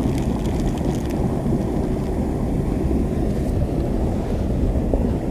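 Steady low rumble of wind buffeting the camera microphone. Faint crinkling of a plastic bait bag during the first second.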